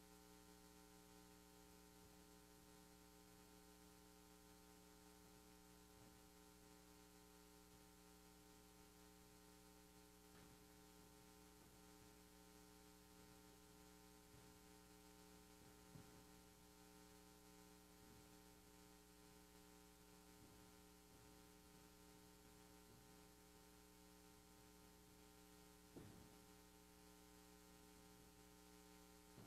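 Near silence with a steady low electrical hum, with a faint knock about halfway through and another near the end.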